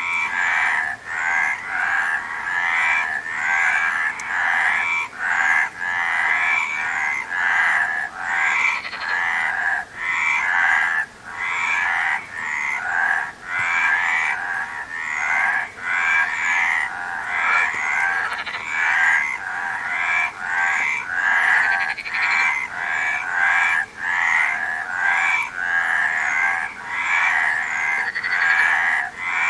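A chorus of many frogs croaking at once, their calls overlapping into a near-continuous din with brief lulls every second or two.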